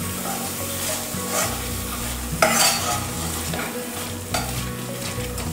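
A hand masher pressing and scraping through thick onion-tomato masala in a nonstick frying pan in irregular strokes, about one a second, while the masala sizzles.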